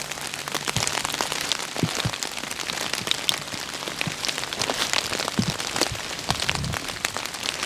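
Steady rain falling, with many individual drops ticking sharply and irregularly close to the microphone.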